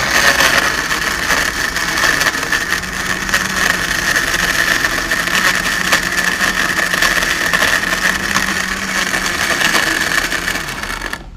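Electric countertop blender running at full speed and crushing ice in its jug: a loud, steady motor whine with a constant rattle of ice, cutting off abruptly near the end.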